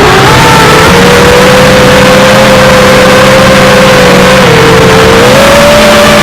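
Wizard X220 FPV racing quadcopter's brushless motors whining loudly, the pitch holding fairly steady, then dipping a little past halfway and rising again with the throttle.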